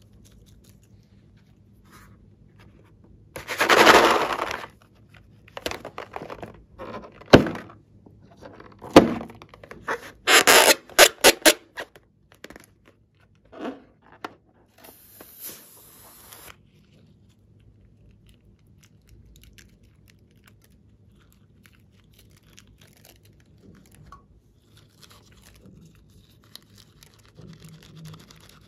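Rubber balloons being handled and cut open with scissors: crinkling, scraping and thunks, loudest in a burst of about a second near the start, then a quick run of sharp clicks around the middle. Only faint handling noise follows in the second half.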